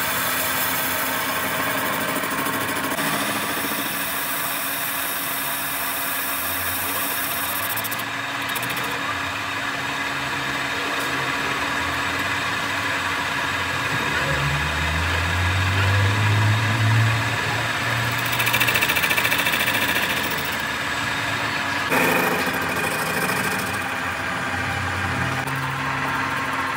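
Metal lathe running steadily while a cutting tool turns the rusty face of a steel hydraulic-cylinder outer plate coupling, giving a steady machine hum with cutting noise. The tone shifts suddenly a few times, and a low rumble swells about halfway through.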